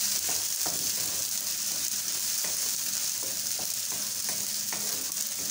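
An onion and tomato sauce base frying with a steady sizzle in a nonstick pan, while a wooden spatula stirs it, scraping and tapping against the pan about twice a second.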